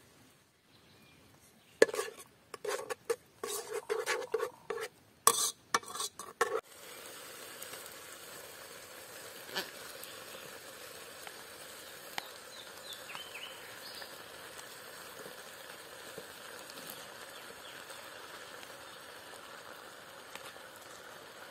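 A metal spoon knocking and scraping against a cooking pot in quick, irregular strokes for about five seconds. Then a steady sizzling hiss from the pot on a wood fire as drained rice is spooned back into it, with a few faint spoon ticks.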